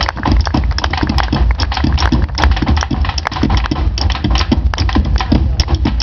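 Malambo boleadoras whirled and struck against the stage floor, their weights clacking sharply several times a second, over steady drumming.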